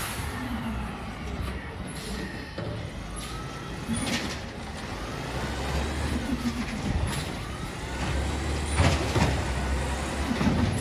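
Autocar ACX garbage truck's engine running at low speed, with several short hisses of air about four, seven, nine and ten seconds in.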